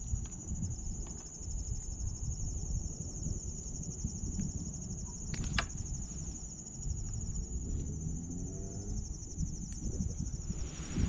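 A steady, high-pitched, finely pulsing chorus of insects in the reeds, over a low outdoor rumble, with a few sharp clicks as a freshly caught catfish and the fishing line are handled.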